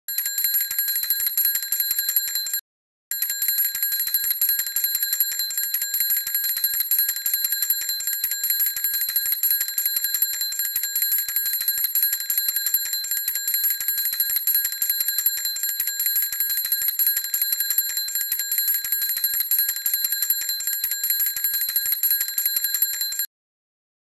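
Small toy bell ringing in a fast, unbroken trill, one bright high ring. It stops for half a second about two and a half seconds in, then rings on until it cuts off suddenly near the end.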